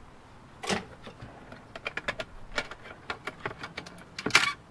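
Irregular small plastic clicks and ticks from a clear plastic light-pipe strip being worked loose from a circuit board's LEDs. There is a louder click about a second in and a louder clatter near the end.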